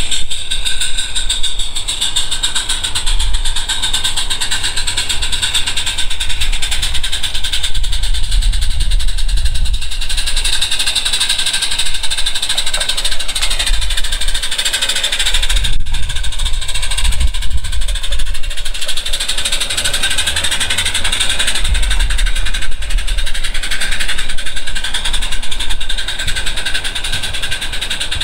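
Multirotor drone's propellers whirring, a steady whine in several pitches that wavers and bends as the motor speeds shift, with a low rumble underneath.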